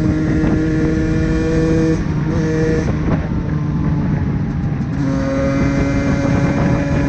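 Suzuki Valenti SM 50 motorcycle's 50cc two-stroke engine running at steady revs while riding. The tone breaks briefly about two to three seconds in, then settles at a steady pitch again.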